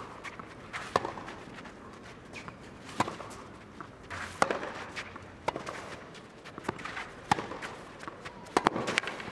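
Tennis rally on a clay court: sharp pops of racket strings on the ball, one every second or two, with the loudest strokes near the end, and the players' footsteps on the clay between them.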